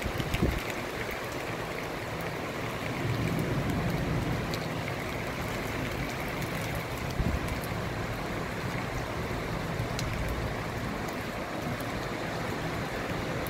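Heavy thunderstorm rain pouring steadily, a dense even hiss, with two brief low thumps, one about half a second in and one around seven seconds in.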